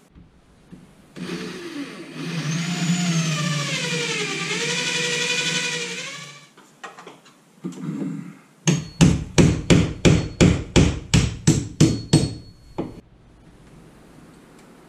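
A power tool motor runs for about five seconds, its pitch sagging and recovering. Then a hammer strikes about a dozen times overhead into the ceiling, roughly three blows a second, driving in a screw eye.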